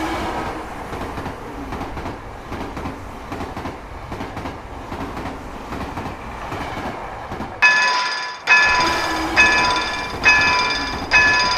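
Train passing over a railroad crossing: a steady rumble of wheels on rails with faint clickety-clack. About seven and a half seconds in, the crossing's warning bell starts ringing, a strike a little under once a second.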